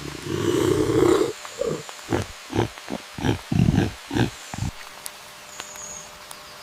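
An animal's low calls: one long call, then a run of about nine short grunts that stops a little before the end.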